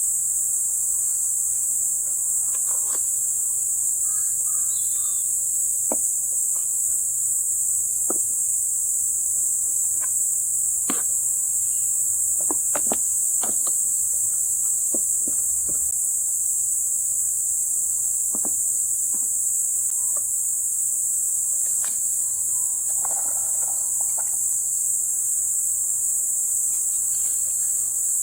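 Steady, high-pitched chorus of insects such as crickets, unbroken throughout, with scattered faint clicks.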